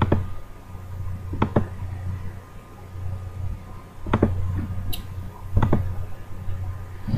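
A handful of short, separate clicks or taps, one every second or two, over a steady low hum.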